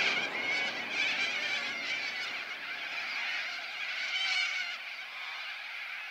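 A dense chorus of high, chirping animal calls, growing quieter over the last second or so.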